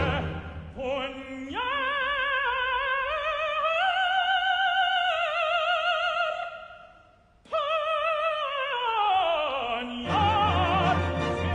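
Operatic tenor singing alone, without the orchestra, with wide vibrato. He climbs step by step to a long high held note, breaks off briefly, then sings a long sweeping descent. The orchestra comes back in near the end.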